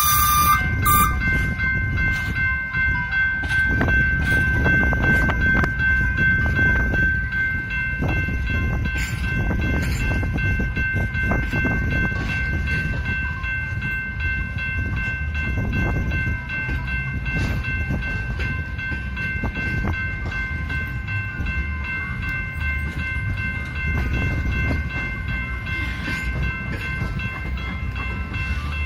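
Grand Canyon Railway passenger train rolling slowly past, a heavy low rumble with wheels clicking over the rail joints and a steady high squeal held throughout. A short sharp burst sounds right at the start.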